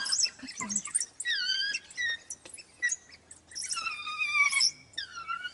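African wild dogs making high-pitched, wavering squeals and twitters, several calls in a row with short chirps between them, typical of the pack begging at a den.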